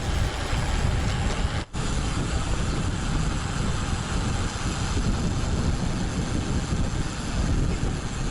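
Wind buffeting the microphone of an action camera on a moving road bike, a steady rushing noise, broken by a very short gap about two seconds in.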